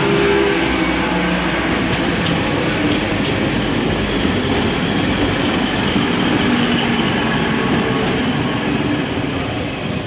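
Passenger train coaches rolling past close by: a steady rumble and rattle of wheels on the rails, easing slightly near the end.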